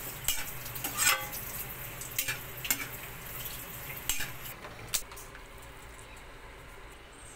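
A spatula stirs and tosses yard-long beans and ground pork in a frying pan over a steady sizzle, with sharp clacks and scrapes about once a second. The sizzle thins out about halfway through.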